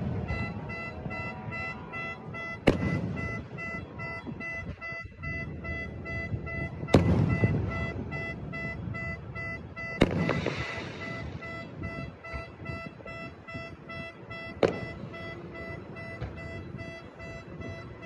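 Aerial firework shells bursting overhead, four booms a few seconds apart, each trailing off in echo. Under them a car alarm beeps in a steady, fast pulse.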